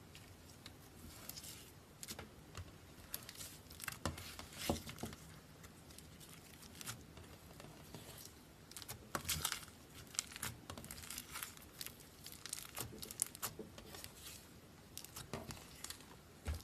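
Hands squeezing and stretching slime: faint, irregular crackles and wet pops, with busier runs about four seconds and nine seconds in.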